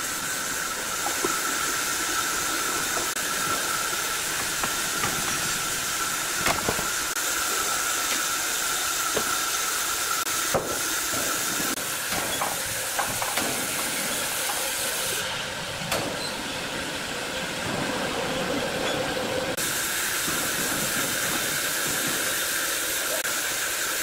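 Sawmill log band saw running steadily: a continuous hiss with a constant whine, and a few scattered knocks.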